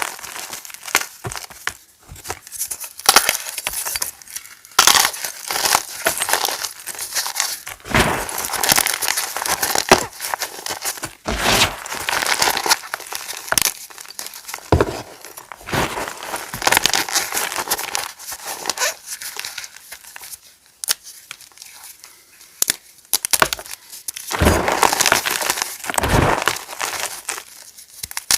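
Chalk pieces being crushed, giving crisp crackling and snapping in irregular bursts with short pauses between them.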